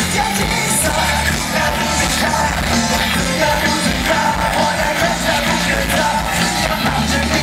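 Loud music with singing, rock-styled, playing without a break.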